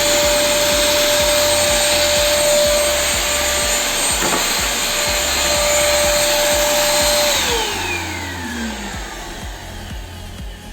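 Electrolux Neo 10 1200 W compact vacuum cleaner's motor running at full speed with a steady whine and airflow rush, working again after a bad contact in its wiring was repaired. About seven seconds in it is switched off and the whine falls away as the motor spins down.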